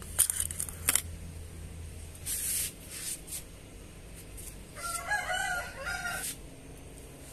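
A rooster crowing once, about five seconds in, one call of about a second and a half. Near the start, a few sharp clicks as a steel food bowl is set down on a pebble-stone floor.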